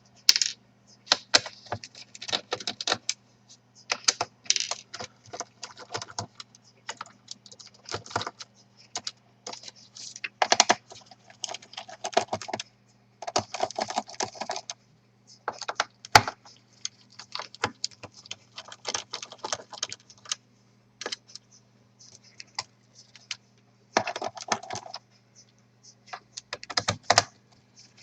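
Small screws being driven out of a laptop's plastic bottom cover with a precision screwdriver: irregular runs of quick clicking and small metallic rattles, with a faint steady low hum underneath.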